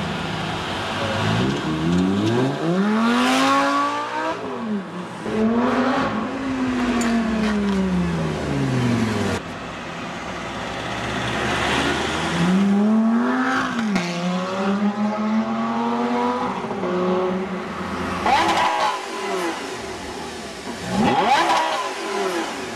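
Lamborghini Gallardo V10 engines accelerating hard, one run after another: about five surges, each climbing sharply in pitch and then falling away.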